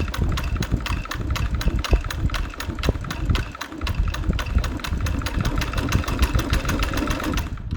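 Singer 328P sewing machine running steadily while sewing a zigzag stitch: a motor hum with a regular clicking of the needle mechanism about five times a second, stopping just before the end.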